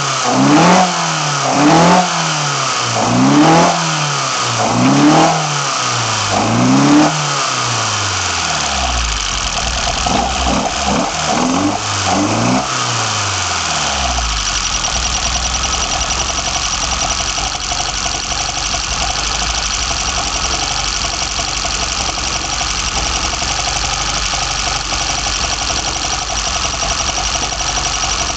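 BMW M10 inline-four on sidedraft individual throttle bodies being blipped, about five quick revs a second and a half apart, then two more, before it settles to a steady idle. About halfway through a thin high-pitched whistle comes in over the idle.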